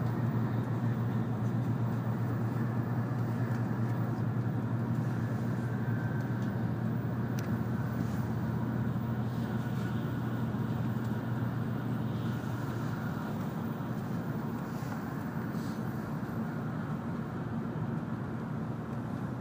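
Running noise inside the cabin of an N700-series Shinkansen travelling at speed: a steady low hum over a rumble of wheels and rushing air, easing a little over the last few seconds.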